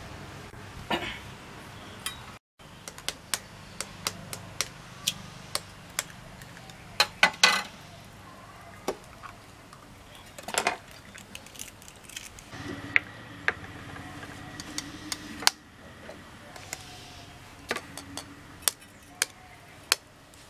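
Eggs being cracked into a stainless steel pot: a string of sharp, irregular taps and clinks as shells are struck with a knife and against the metal pot.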